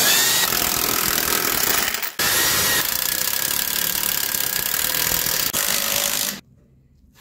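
Cordless impact wrench hammering as it runs bolts tight: a run of about two seconds, then after a short break a longer run of about four seconds, both stopping abruptly. These are the new rear shock's bolts and the wheel's lug nuts being tightened.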